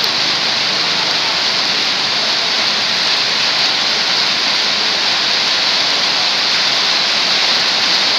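Heavy rain falling, a steady, dense hiss.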